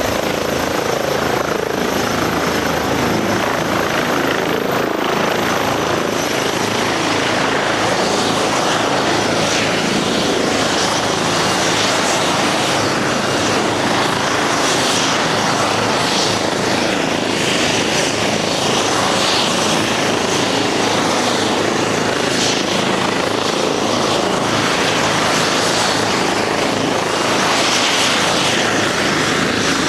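Airbus H135 helicopter's twin turbine engines and main rotor running steadily. A high turbine whine sits over the rotor noise and drops a little in pitch about five seconds in.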